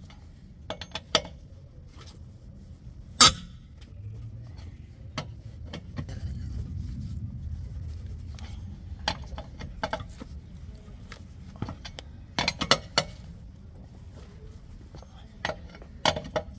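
Scattered metallic clinks and taps of a lug wrench and lug nuts on the studs of a steel car wheel as the wheel nuts are put on and tightened, the sharpest about three seconds in and a cluster around twelve to thirteen seconds. A low rumble runs underneath, swelling in the middle.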